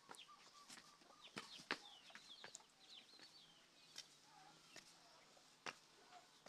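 Faint bird chirps, a run of short quick calls sliding in pitch through the middle seconds, with scattered sharp clicks throughout.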